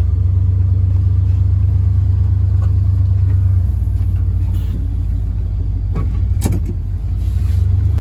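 Old pickup truck driving, heard from inside the cab: a steady low engine and road rumble that shifts slightly in level about halfway through, with one short knock near the end.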